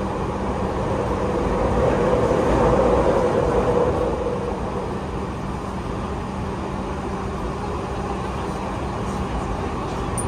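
Toei 6500 series subway train, with Mitsubishi SiC hybrid VVVF drive, running: a steady rumble of the train under way, heard from inside the car, swelling a little about two to four seconds in.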